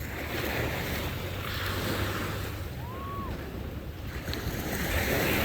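Small sea waves washing up on a sandy beach, swelling and falling away twice, with wind rumbling on the microphone. A short high whistle-like note sounds about three seconds in.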